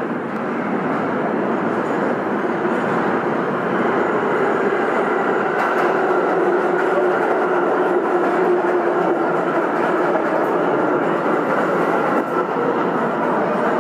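Steady, loud rumbling noise with faint humming tones that shift near the end.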